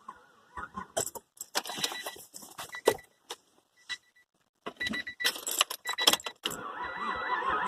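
A bunch of keys jangling and clicking in irregular bursts, with a pause in the middle, and a few short high beeps in between.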